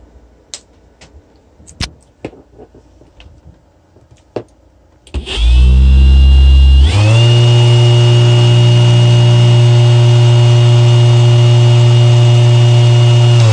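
E-bike hub motor driven by a 1000 W sine-wave controller, spinning with no load: after a few faint clicks it starts about five seconds in with a loud hum and whine, jumps to a higher steady speed a second or two later, and runs evenly until it winds down right at the end.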